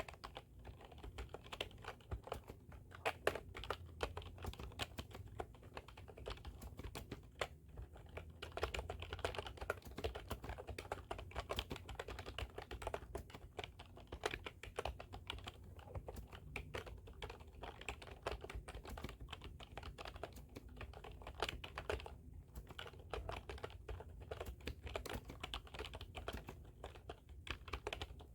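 Typing on a computer keyboard: a steady, irregular run of key clicks with a few brief pauses.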